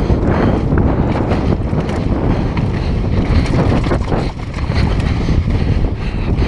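Wind buffeting the action camera's microphone during a fast downhill mountain bike descent, with knobby tyres on dirt and the bike clattering over rough trail in a steady stream of small knocks.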